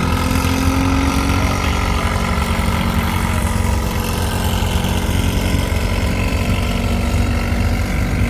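Vintage farm tractor engines running steadily at low parade speed, a continuous drone with a low rumble, as a Farmall tractor drives slowly past close by and a Ford tractor follows.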